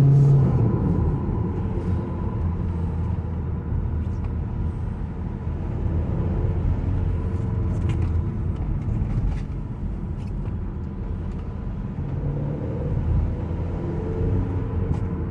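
VW Caddy 1.9 TDI diesel engine and road noise while driving, a steady low rumble, a little louder at the very start. The engine is pulling with turbo boost restored after a broken intercooler hose connector was repaired.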